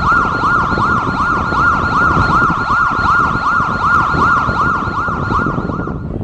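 Electronic siren tone warbling rapidly up and down, a bit over two cycles a second, over a steady low rumble; it cuts off abruptly near the end.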